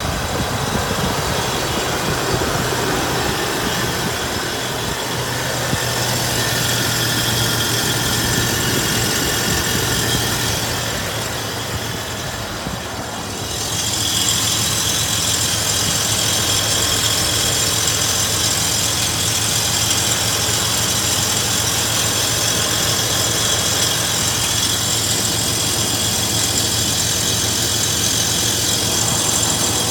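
2000 Toyota 4Runner running with a grinding noise. The sound is steady, dips briefly about twelve seconds in, then comes back with a higher-pitched edge.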